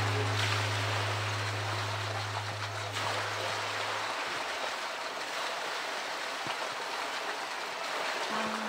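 Pool water splashing and sloshing as a polar bear swims and pushes a floating blue plastic barrel. A low steady hum stops about four seconds in.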